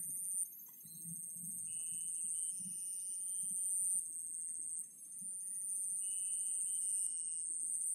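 Chorus of insects: a steady high-pitched buzzing with a fast-pulsed trill under it, and a lower steady whine that comes in twice for about a second and a half each (about 2 s in and about 6 s in).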